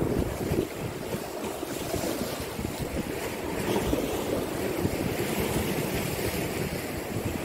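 Wind buffeting the microphone over the steady wash of sea waves breaking against a concrete seawall.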